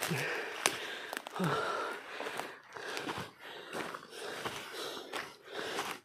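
Footsteps through dry leaf litter and twigs, with brush rustling against the body and heavy breathing of someone hiking hard through undergrowth. There are about two uneven noisy steps a second.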